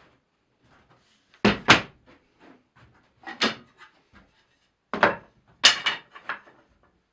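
Wooden boards knocking and clattering as they are handled and set down on a workbench: several sharp knocks, some in quick pairs.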